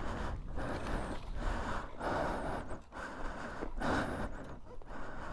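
A person breathing hard close to the microphone: a run of rushing in-and-out breaths, each about half a second to a second long with short pauses between.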